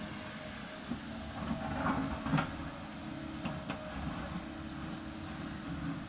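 Kobelco 220 excavator's diesel engine running steadily under load while the bucket digs and scrapes into the hillside soil, with knocks of bucket on earth and stone, the loudest about two and a half seconds in.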